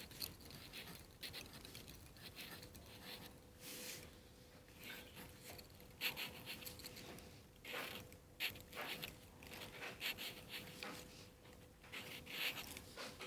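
Pencil scratching across paper while writing letters, in short, irregular strokes.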